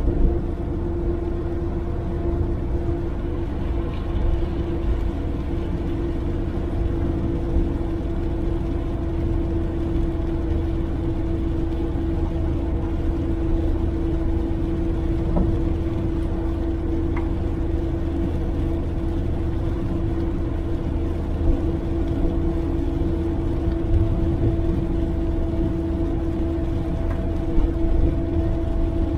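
Suzuki Jimny driving at steady speed, heard from inside the cabin: a constant engine hum over low tyre and road rumble, with a few brief knocks.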